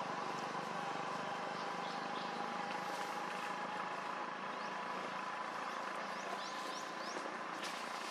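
Outdoor ambience: a steady hiss with a faint steady hum, and a few short, high, rising chirps in the second half.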